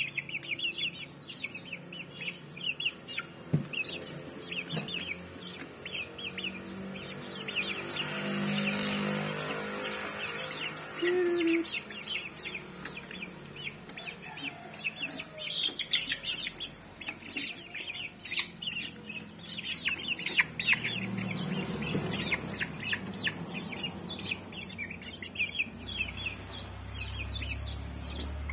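Young Rhode Island Red and black Australorp chickens peeping continuously in many short, high chirps, with lower clucking calls now and then.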